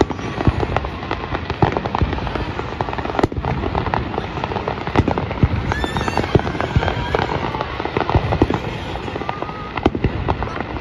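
Aerial fireworks display: a dense, irregular run of bangs and crackling as shells burst one after another, with a brief rising whistle about six seconds in.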